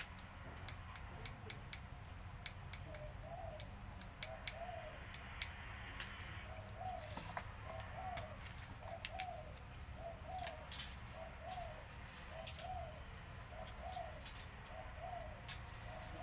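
A bird calling over and over, a short rising-and-falling note repeated about every half second to second. In the first five seconds there are several sharp clicks, each with a high ringing tone.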